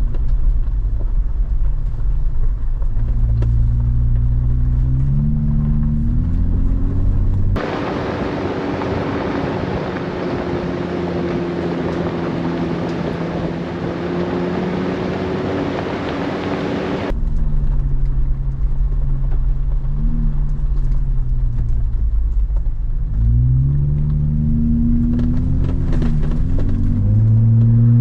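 Jeep Wrangler driving on a dirt forest road: engine running under way, its pitch rising several times as it accelerates. For about ten seconds in the middle the engine gives way to a steadier hiss of road and tyre noise, starting and stopping abruptly.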